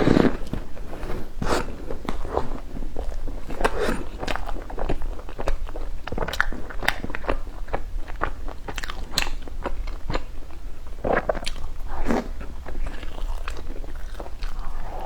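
Close-up crunching and chewing of a crisp bread puff, many short crackling bites and chews at an irregular pace.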